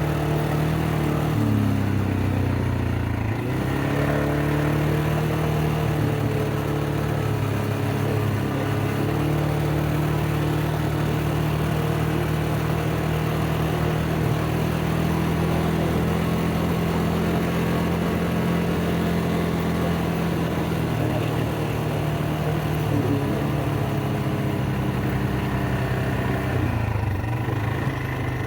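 ATV engine running under way, its engine note dropping about two seconds in and climbing back a second or two later, then holding steady until another dip and rise near the end.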